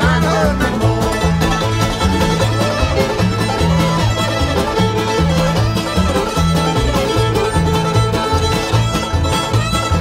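Old-time string band playing an instrumental break: fiddle and banjo lead over guitar and mandolin, with upright bass keeping a steady beat.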